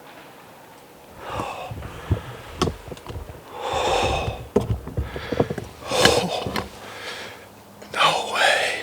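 A bowhunter breathing hard and gasping close to the microphone, a string of breathy puffs and long exhales starting about a second in, with a few small clicks and a faint whisper near the end: the adrenaline of having just shot a buck.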